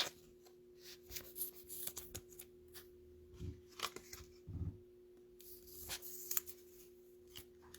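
Trading cards being handled and laid out on a table: scattered faint taps, slides and rustles, a few slightly louder knocks near the middle, over a steady low hum.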